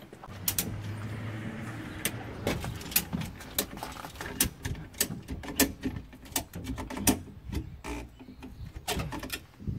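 Irregular sharp clicks and knocks, two or three a second, from hands-on work fitting a leaf spring under a bus, with a low hum in the first two seconds.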